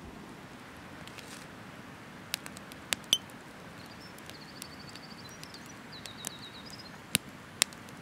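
Wood campfire crackling, with a handful of sharp pops in two clusters, a few seconds in and near the end. A small bird sings two short, high, rapid trills in the background around the middle.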